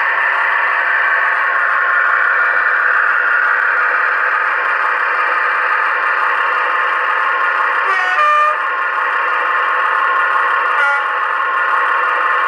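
Sound decoder in a model Class 22 diesel locomotive playing a steady diesel engine idle through its small speaker, thin and without bass. A short horn blast comes about eight seconds in, and a briefer tone about three seconds later.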